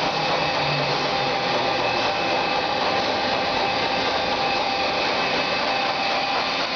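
Harrison Alpha 600 CNC lathe running: a steady machine whir with a few constant whining tones above it.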